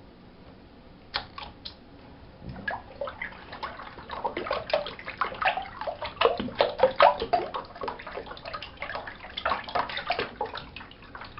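Green Slime Baff bath water draining from a bathtub, gurgling and splashing at the drain as a hand swishes water toward it. Fairly quiet at first, with a few drips about a second in, then busy, irregular splashing and gurgling from about three seconds in.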